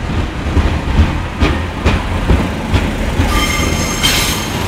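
Class 144 Pacer diesel multiple unit passing close by over a level crossing: a steady low rumble of engine and wheels with sharp knocks from the wheels over the rail joints every half second or so. From about three seconds in a high-pitched wheel squeal rises over it.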